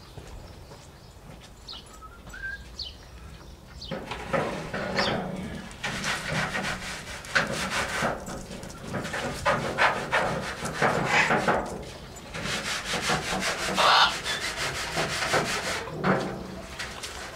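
Repeated scraping and rubbing strokes that start about four seconds in and keep going, with a few short bird chirps before them.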